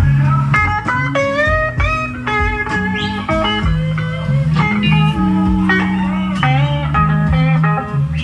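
Blues music: an electric guitar playing bent, gliding lead notes over a stepping bass line.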